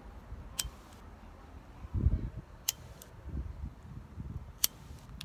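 A Bic disposable lighter being flicked three times, a sharp click about every two seconds, failing to light a cigarette uncupped in a light breeze. Low rumbles in between, the loudest about two seconds in.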